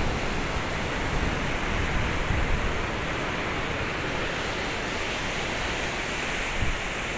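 Steady rushing of swollen floodwater pouring over a concrete dam spillway and churning below it, with low buffets of wind on the microphone about two seconds in and near the end.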